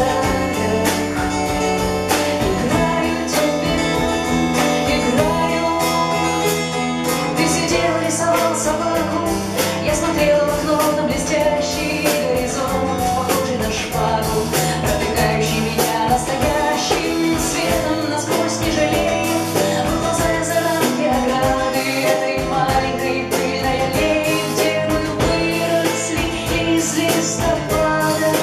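Live band playing a song: a woman singing over keyboard, acoustic guitar, electric bass and a drum kit.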